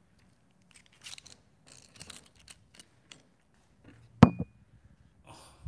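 A phone being handled and fitted into a tripod's phone clamp: scattered small clicks and rustles of fingers on the phone and plastic mount, with one sharp click about four seconds in.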